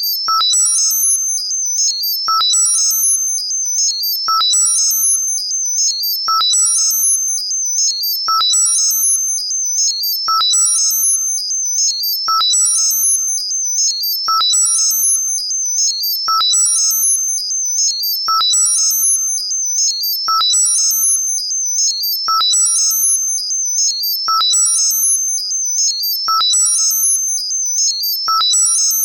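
Synthesized high-pitched modulated tinnitus-masking sound: a cluster of very high stepping tones over a steady high ringing tone. A click and a short lower beep repeat about every two seconds.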